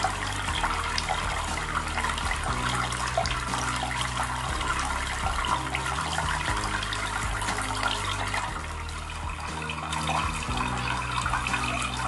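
Water splashing and trickling steadily down a small homemade cement waterfall fountain.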